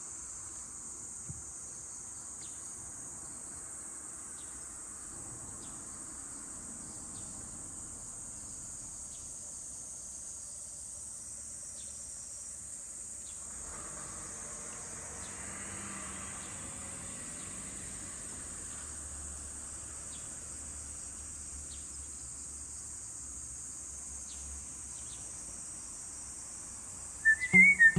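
A steady, high-pitched chorus of insects shrilling, with a soft rushing noise swelling in about halfway through. A loud whistled tune starts just before the end.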